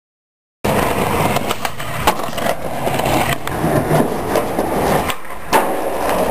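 Skateboard on concrete and a brick ledge: urethane wheels rolling and the board scraping along the ledge, cutting in abruptly after a short silence. A sharp clack comes about two seconds in, and a louder clack near the end as the board lands back on the pavement.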